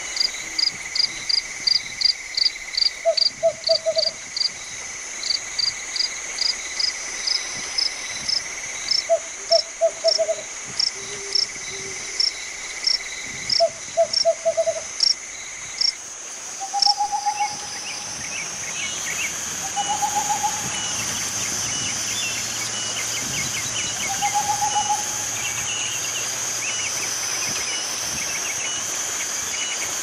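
Owl hooting: short groups of three or four low hoots a few seconds apart, then three single, slightly rising hoots in the second half. A fast run of sharp high chirps, about three a second, through the first half, over a steady high insect drone.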